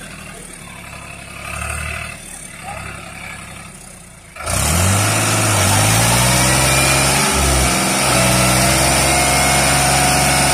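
New Holland TT55 tractor's diesel engine running at low revs, then about four and a half seconds in suddenly opening up, revving and holding a loud steady note under heavy load as the tractor strains to pull a loaded trolley out of deep mud.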